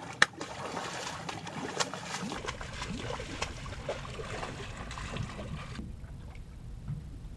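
Water lapping and sloshing against the hull of a drifting boat, with a sharp click just after the start and another near two seconds; the splashy sound thins out near six seconds.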